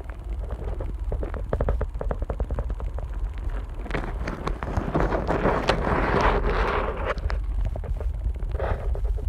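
Underwater sound of a camera being moved through pond weed: a steady low rumble with scattered clicks and taps, and a louder rushing noise from about four to seven seconds in.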